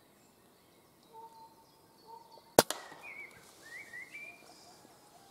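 A silenced air rifle shot: a single sharp crack about two and a half seconds in. Faint bird chirps follow it.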